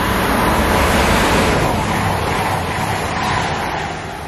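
Class 222 Meridian diesel multiple unit passing close by at speed. A loud rush of wheel, rail and engine noise swells to a peak about a second in, then fades after about three and a half seconds.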